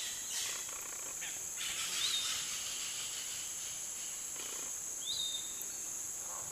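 Steady high-pitched buzz of insects in the rainforest, with a bird's short whistled note, rising then falling, heard about three times a couple of seconds apart.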